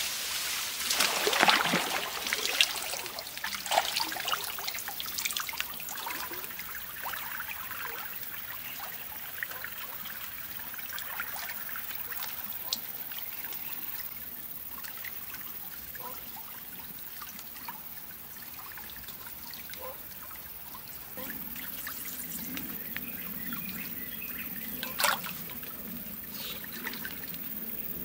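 Shallow stream water splashing and sloshing around wading legs for the first few seconds, settling into a steady trickle of flowing water. One sharp click near the end.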